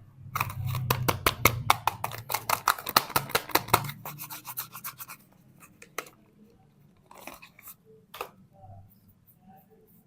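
Soap being unwrapped from its packaging close to the microphone: rapid crackling and scratching for about five seconds, then a few separate clicks.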